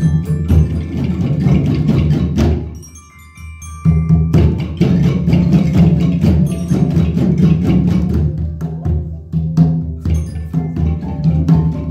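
Group percussion playing: boomwhackers struck in many short overlapping pitched notes over a steady djembe beat. The playing drops away briefly about three seconds in, then comes back in full.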